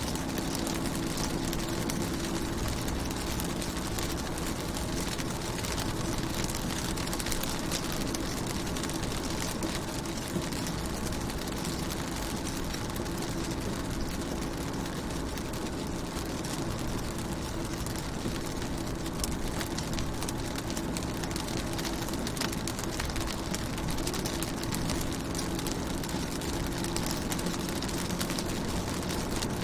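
Rain falling on a car's windows and body: a steady hiss dotted with many small drop ticks, over a low steady hum that fades in the middle and comes back near the end.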